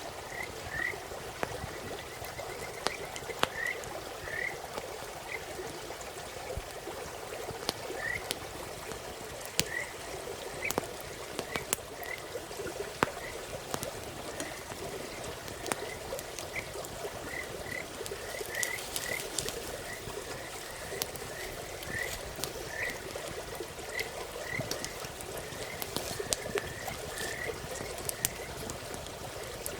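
Frogs calling: short chirping notes repeated irregularly throughout, over a steady background din. Sharp snaps from a crackling campfire come now and then.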